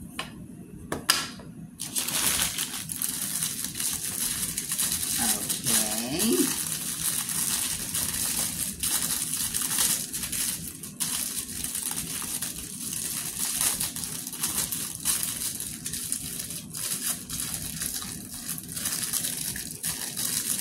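Packaging crinkling and rustling with many small irregular crackles as doll parts are handled and unwrapped, after a couple of light clicks at the start.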